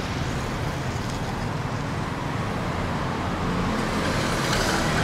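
Street traffic running steadily, with one vehicle passing a little louder near the end.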